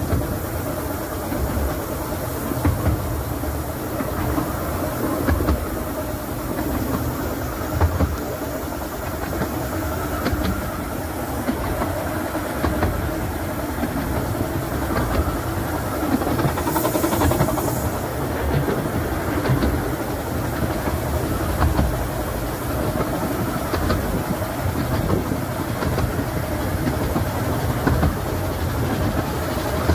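Steady running noise of a 15-inch-gauge railway carriage on the move, heard from on board: the wheels rumble and click over the rail joints, with a brief hiss about halfway through.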